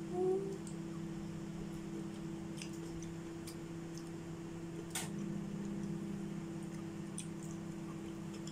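Steady low mechanical hum of a running machine, with a few faint clicks and a short voice-like sound right at the start.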